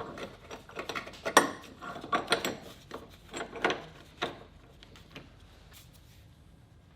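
Hand tools and metal suspension parts clicking and clanking irregularly, busiest over the first four seconds or so and then quieter.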